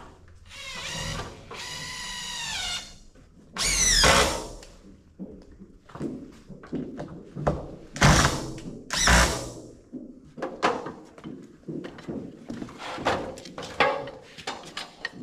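Power drill driving screws into a timber rim joist: a motor whir for about two seconds that sags in pitch as the screw seats, a louder whir a little later, then two short hard bursts, with knocks and clatter of wood and tools in between.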